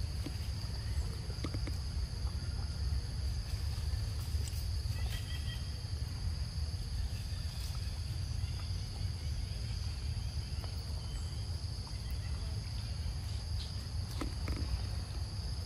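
Outdoor forest ambience: a steady high-pitched insect drone over a low, even rumble, with a few faint scattered clicks.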